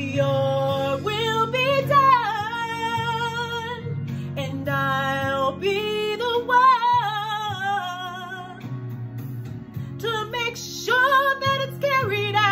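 A woman singing gospel, holding long notes with vibrato that bend and slide in pitch, over a steady instrumental backing.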